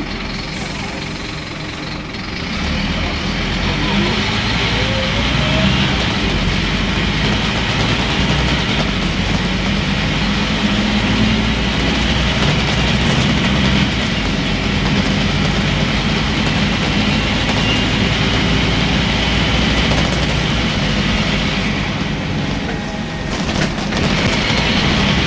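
Engine and drivetrain of a Scania N230UB single-deck bus heard from inside the saloon, getting louder about two seconds in as the bus pulls away, then running steadily with road and body rattle. A brief rising whine comes a few seconds in, and near the end the sound dips briefly before picking up again.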